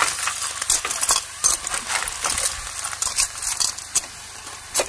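Clams in their shells being stirred with a metal ladle in an aluminium pot: the shells clatter and scrape against each other and the pot in irregular clicks, thinning out after about three seconds.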